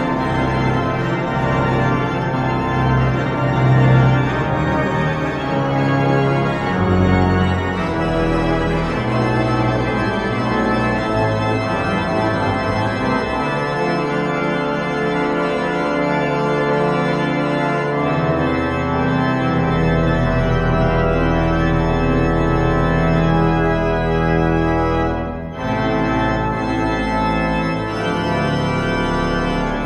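Church organ playing held chords that change every few seconds, with deep bass pedal notes coming in partway through and a brief break between chords near the end.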